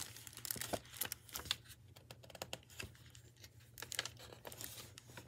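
Faint, scattered clicks and crinkles of a picture book in a plastic library jacket being handled and its pages turned.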